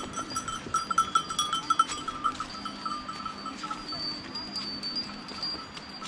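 Bells tied on a passing herd of goats clanking and ringing irregularly. The clanks are loudest and thickest in the first two seconds, then thin out to a lighter, longer ringing.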